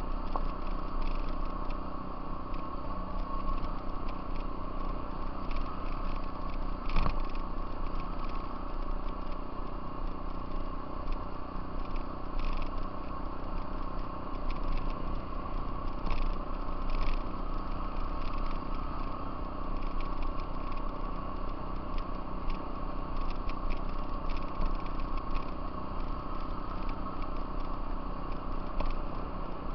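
Off-road vehicle engine running steadily while riding a bumpy dirt trail, with rattles and knocks from the ride; one louder knock about seven seconds in.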